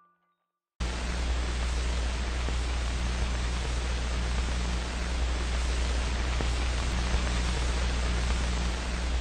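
Steady static hiss with a strong low hum beneath it, cutting in suddenly under a second in after a brief silence.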